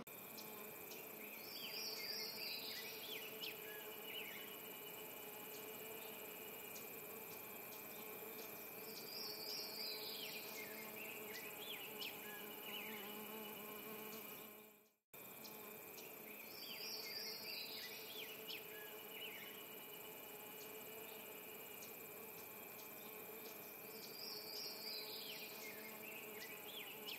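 Honeybees buzzing around open hives, a steady low hum with a few short high chirps. The sound cuts out suddenly about halfway through, then the same stretch of buzzing repeats.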